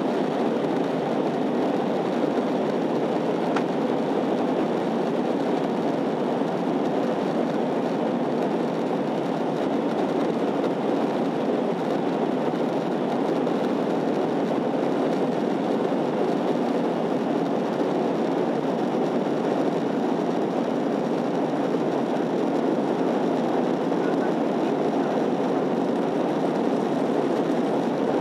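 Steady in-flight cabin noise of an Airbus A321-211 airliner: an even rush of airflow and engine drone, loud and unchanging.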